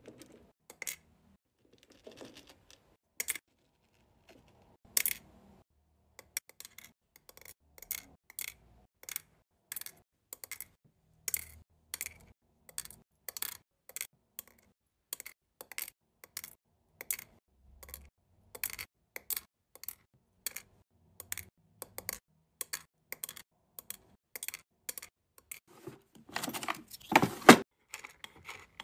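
Small hard-wax beads dropping one at a time into the empty metal pot of a wax warmer, each landing with a sharp click, about two a second. Near the end comes a louder, denser rattle as a wooden stick pushes the beads around against the metal.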